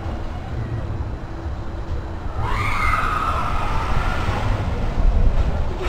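A person's high, wavering scream lasting about two seconds, starting a couple of seconds in, over a steady low rumble.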